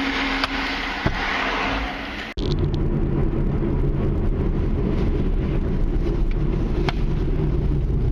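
Road noise of a car driving on a highway. At first it is a hissy tyre-and-traffic noise with a steady hum. About two seconds in it changes abruptly to a deeper, steady rumble.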